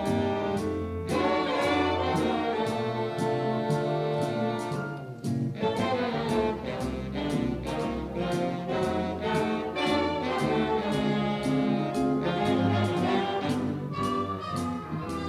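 A big band playing jazz live, its trumpet and trombone sections playing full ensemble chords and figures with saxophones, over a drum kit whose cymbal keeps steady time. The band drops out briefly about five seconds in, then comes back in.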